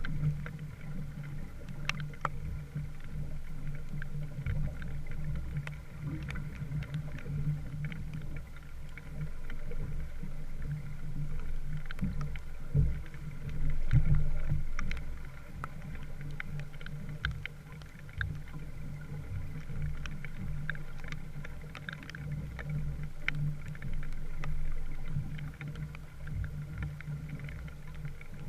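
A small wooden sailboat under way, heard as a steady low rumble of water moving along the hull that swells and eases, with many small scattered ticks.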